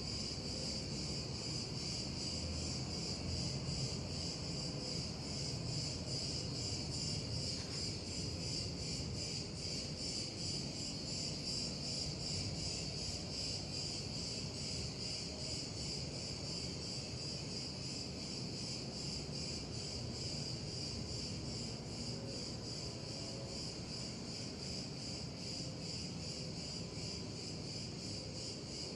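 A steady, high-pitched chorus of chirping insects, a continuous pulsing trill, over a faint low rumble.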